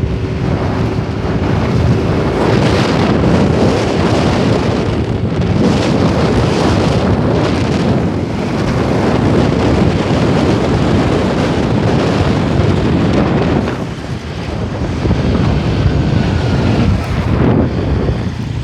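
Wind buffeting the microphone over the noise of passing road traffic, steady and loud, with a short lull about fourteen seconds in.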